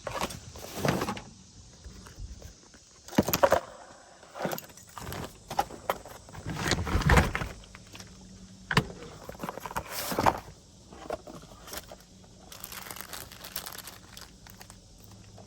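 Irregular clicks, knocks and rattles of hardware and parts being handled, with a louder scuffing patch about halfway through.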